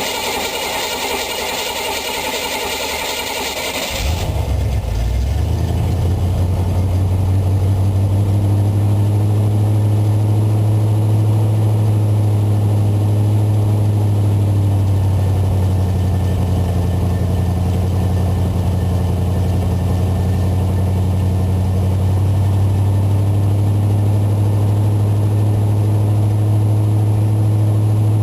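Small-block Chevy 305 V8 of a 1985 GMC C10 heard through its exhaust: after a few seconds of hiss, the engine starts about four seconds in and settles into a steady, loud idle, its pitch wavering slightly.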